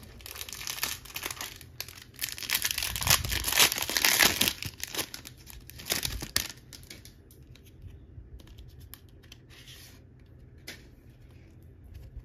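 A trading card pack wrapper being torn open and crinkled by hand, loudest about two to four and a half seconds in, then lighter rustling and handling of the cards.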